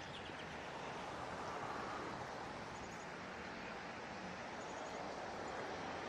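Steady outdoor rushing noise with faint, high bird chirps over it: a short run of notes right at the start, then two quick runs of about four high ticks near the middle.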